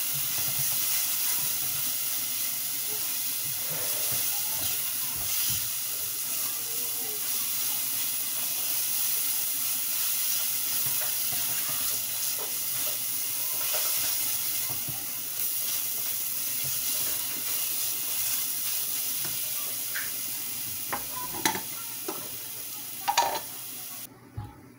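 Garlic paste sizzling steadily in hot oil in a nonstick pot while a silicone spatula stirs and scrapes it, with a few sharp knocks near the end. The sizzle cuts off suddenly just before the end.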